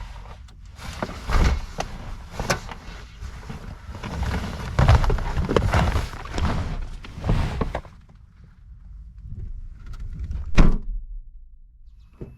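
Camping gear being handled and packed: a run of irregular rustling and knocks, then a single sharp thunk near the end.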